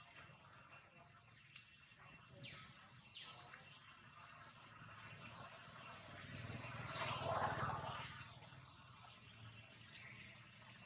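A bird repeating a short, high chirp that dips and rises in pitch, every one to three seconds, against outdoor ambience; a swell of broad rushing noise with a low hum rises and fades a little past the middle.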